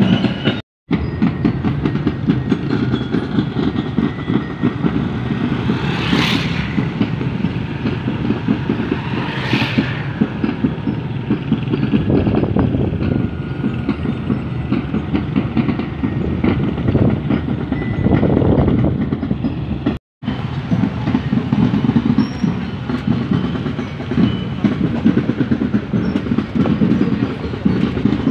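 Steady rumble of vehicles on the move, the car carrying the camera and the motorcycles in the procession ahead, with two short hissing bursts about six and ten seconds in. The sound drops out for a split second twice.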